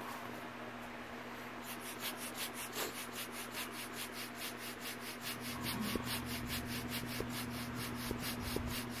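Vinyl inflatable beach ball being handled and rubbed by hand. From about two seconds in there is a fast, even scratching at about five strokes a second, over a steady low hum.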